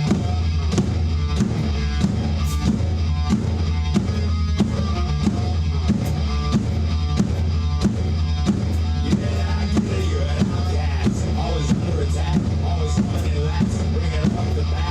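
Hard rock song with distorted electric guitars and bass, and a drum kit played along with it in a steady beat.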